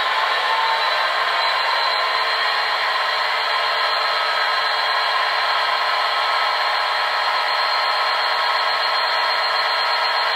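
Class 66 diesel locomotive's EMD two-stroke V12 engine sound, idling steadily, played by a DCC sound decoder through the small speakers of a Bachmann OO gauge model. An even drone made of many thin steady tones, with little deep bass.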